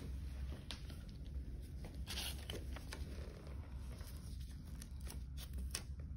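Plastic medical packaging handled by gloved hands while an IV is placed: short crinkles and a tearing, peeling sound, strongest about two seconds in, with a few light clicks near the end, over a steady low hum.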